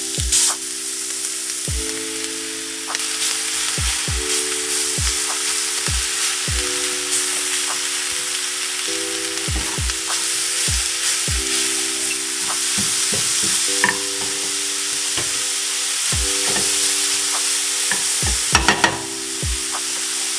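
Crumbled turkey sausage and baby spinach sizzling in a hot skillet on a gas stove, stirred with a wooden spatula that knocks and scrapes against the pan every second or so, with a quick cluster of knocks near the end.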